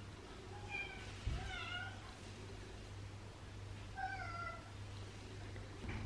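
A domestic cat meowing faintly, three short calls. The second and third calls are about three seconds apart.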